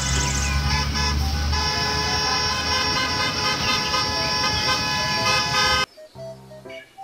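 Background music with long, steady chords over a low rumble that fades after the first second and a half. About six seconds in, the sound drops off abruptly, leaving quieter, sparser music.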